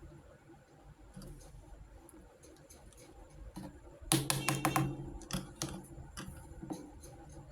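Small plastic miniature kitchen toy pieces being handled, giving light irregular clicks and taps, with a burst of quicker, louder clicking about four seconds in.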